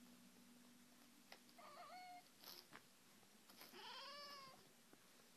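A cat meowing twice, faintly: a short wavering meow about one and a half seconds in, then a longer meow that rises and falls a little before the four-second mark.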